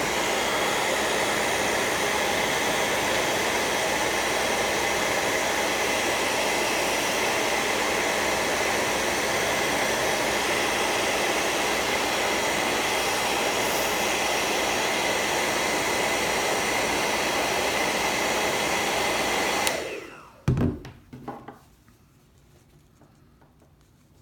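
Handheld hair dryer running steadily with a faint whine, then switched off about 20 seconds in and dying away, followed by a couple of light knocks.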